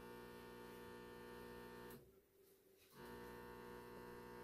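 Faint steady electrical hum from a Samsung front-load washer's drain pump, running without draining; the technician traces the noise to a faulty drain pump. The hum drops out for about a second midway and then returns.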